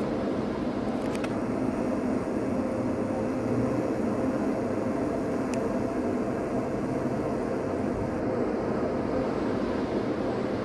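Steady mechanical hum and rumble with a faint held tone, heard from inside a car parked at a gas station fuel pump during refuelling, with one light click about halfway through.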